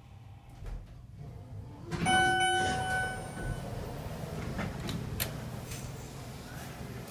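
Schindler MT 300A traction elevator arriving at a floor: a single chime about two seconds in that rings and fades, then the car doors sliding open with a steady low rumble and a few clicks.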